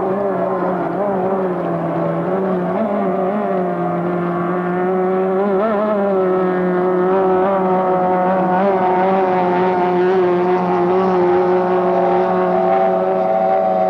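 Racing outboard engines of several three-point hydroplanes running at high revs, their overlapping notes wavering in pitch at first and then holding steadier. The sound grows a little louder about five seconds in.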